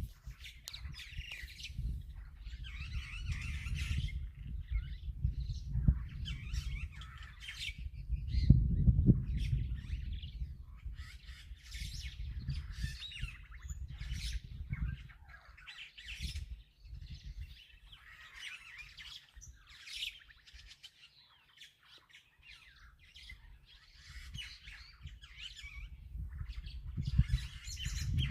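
Wild birds chirping and calling in many short notes, over a low rumble that swells about nine seconds in and fades away in the middle stretch.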